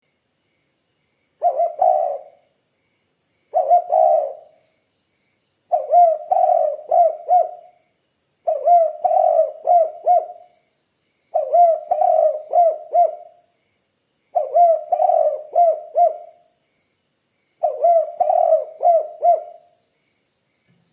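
Spotted dove cooing: seven phrases of several low coos each, about every three seconds, the first two phrases shorter than the rest.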